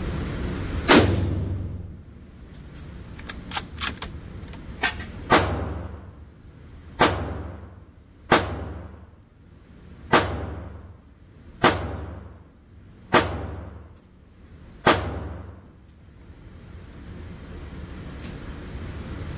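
A string of about eight sharp gunshots, each trailing off in a ringing echo. The first comes about a second in, the rest about every one and a half seconds, with a few light metallic clicks between the first and second shots.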